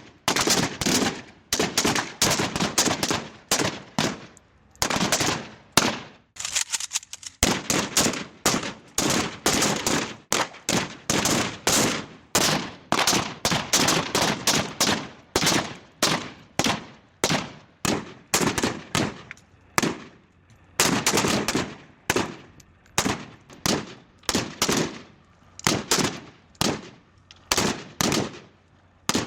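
Gunfire sound effects: many short bursts of rapid shots, one after another with brief gaps between them, each shot fading quickly.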